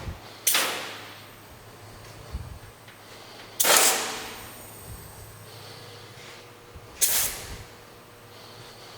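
Pneumatic cylinders of a Ritter R300 cabinet door and frame clamp cycling, each stroke giving a sharp burst of exhausting air. There are three bursts, about three seconds apart, each fading over about a second.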